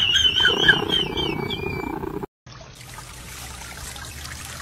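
A high wavering tone over other sound, cut off abruptly two seconds in. Then a garden water feature's water trickles steadily.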